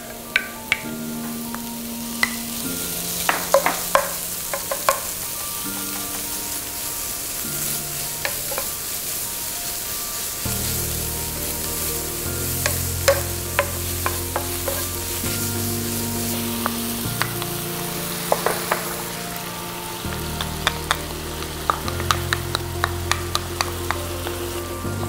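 Chopped garlic, onion, celery and minced meat sizzling as they are stir-fried in an oiled frying pan. A wooden spoon clicks and scrapes against the pan as it stirs.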